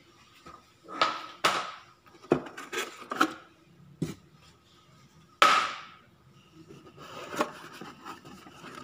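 Cardboard sheets and the cardboard box knocking and scraping as hands lift and shift flat paper parts inside it: a string of sharp knocks with rustling between, the loudest about five and a half seconds in.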